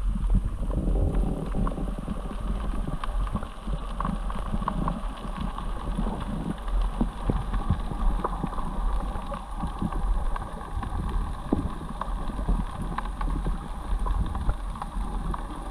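River current heard underwater through a GoPro's waterproof housing: a muffled, steady low rumble with many irregular small clicks and ticks.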